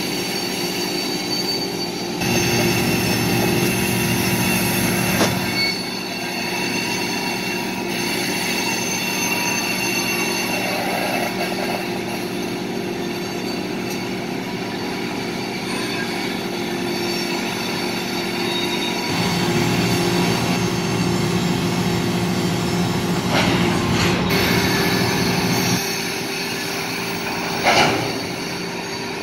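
Covered hopper cars rolling slowly on the rails, their wheels squealing in several steady high tones over a low rumble that swells and fades twice. A few sharp metallic clanks come about five seconds in and twice near the end.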